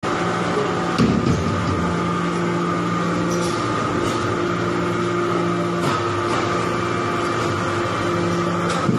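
Hydraulic metal-chip briquetting press running: a steady hum from its hydraulic power unit whose tones shift partway through, broken by sharp clanks about a second in, around six seconds and near the end.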